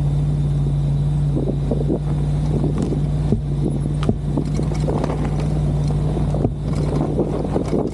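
1999 Chevy Suburban's engine running steadily under load as its straight plow blade pushes through deep snow. Wind buffets the hood-mounted microphone, with irregular knocks and crackles throughout.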